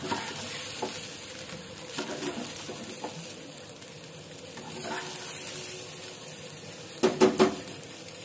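Soaked rice and vegetables sizzling in ghee in a pan as a slotted steel spoon stirs and scrapes through them, with small knocks of the spoon here and there: the rice being lightly fried before pressure cooking. Near the end come three quick, loud knocks.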